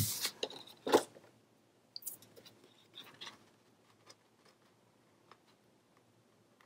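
Sheets of patterned paper and cardstock being handled and laid down on a cutting mat: a few paper rustles in the first second, the loudest just under a second in, then a handful of faint taps and rustles before it goes quiet.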